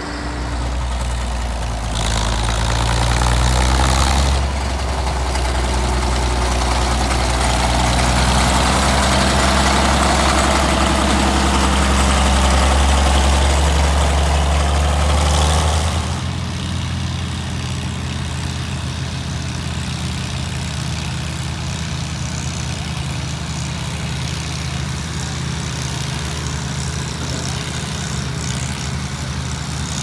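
Vintage Caterpillar motor grader's engine running steadily. It is louder in the first half. After a cut about halfway through, the lighter, steady engine of a 1947 Detroit Tractor 44-16 runs as the tractor pulls a scraper.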